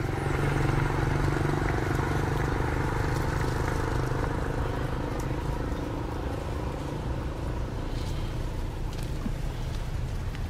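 An engine running steadily, swelling at the start and then slowly fading.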